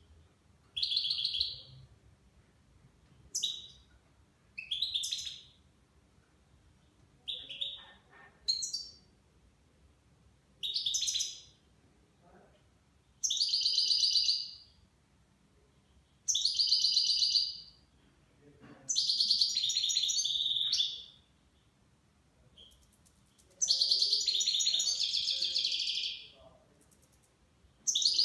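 Caged nine-month-old European goldfinch singing in the Levantine (Shami) style: about a dozen short, high, twittering song phrases with pauses between, the phrases growing longer and louder toward the end.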